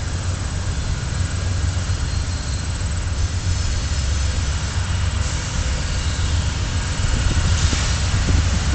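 Distant freight train approaching: the low, steady rumble of its lead GE C40-9W diesel-electric locomotives, growing slightly louder near the end.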